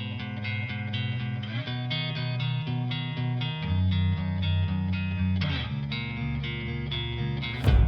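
Background music led by strummed guitar with a steady beat, ending on a loud crash near the end.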